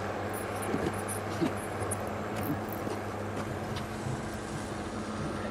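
A steady low hum, with scattered light clicks and knocks from tools and plastic toolboxes being handled and put away.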